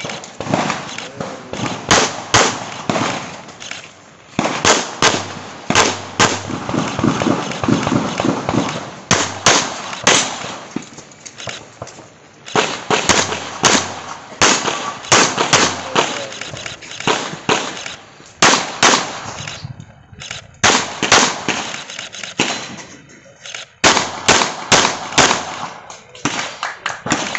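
Handgun shots fired in quick strings during a practical-shooting (IPSC) stage run, with short pauses between the strings.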